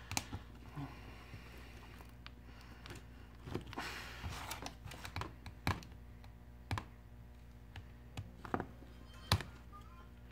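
A pry tool worked under the edge of a heated Samsung Galaxy phone's front glass: scattered sharp clicks and ticks, with a short stretch of scraping about four seconds in. The glass is stuck tight by its adhesive.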